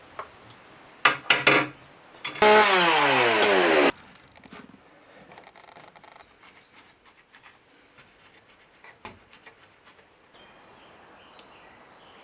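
Chainsaw blipped in two short bursts about a second in, then running loud for about a second and a half with its pitch falling steadily, as under load in wood. After that only faint small knocks and rustles.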